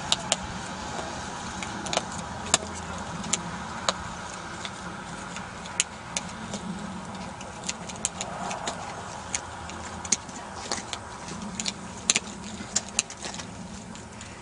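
Rigid plastic honeycomb gravel-grid panels being snapped together at their seams by hand: a string of irregular sharp plastic clicks over a steady low rumble.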